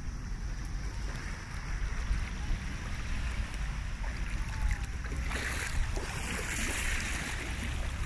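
Small waves lapping and washing onto a sandy shore, with wind rumbling on the microphone. About five seconds in, a wave washes in louder, hissing for a couple of seconds.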